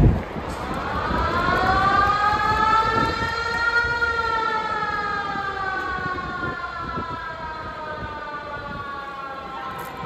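Koshien Stadium's siren winding up in pitch for about four seconds, then slowly winding down.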